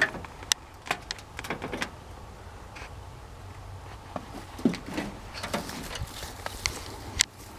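Dry grass stalks crackling and rustling as someone moves through long grass, with irregular sharp snaps and clicks; the loudest snaps come at the start and near the end.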